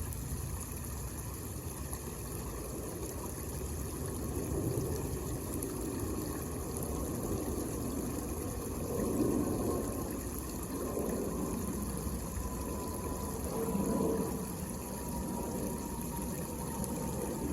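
Small homemade waterfall fountain: water falling and splashing steadily into a basin, swelling a little now and then.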